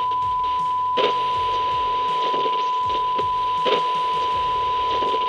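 Steady test-tone beep of the kind played with TV colour bars, held unbroken over crackly static, with sharp clicks about a second in and just before four seconds.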